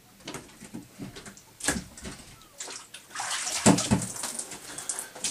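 Water splashing and sloshing in irregular bursts, mixed with knocks, loudest about two-thirds of the way in.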